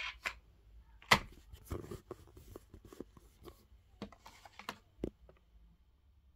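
Handling a Tech Deck fingerboard in its plastic blister pack on a cardboard backing: a sharp click about a second in, then scattered plastic clicks and crinkling, and a dull knock a little after five seconds.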